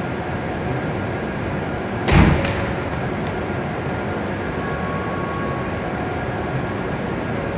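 An E7-series Shinkansen crew door shutting with a single loud thud about two seconds in, followed by a few light clicks as it latches, over a steady background hum.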